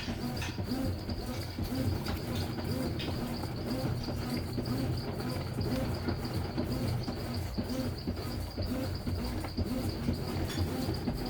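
Small electric washing machine running through its wash, its motor giving a steady low hum with a rhythmic churning pulse of the agitation. A thin, steady high-pitched tone runs on top.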